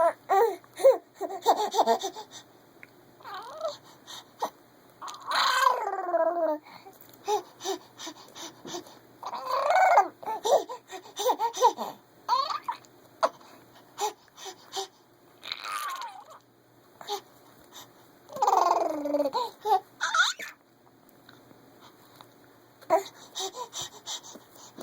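A baby making squealing, growly vocal sounds that are likened to Chewbacca, mixed with laughter. The sounds come as a string of separate calls, several of which slide down from a high squeal to a low growl.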